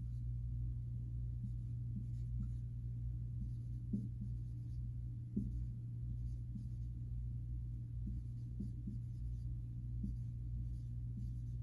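Dry-erase marker writing on a whiteboard: short, irregular strokes and taps as letters are formed, over a steady low hum.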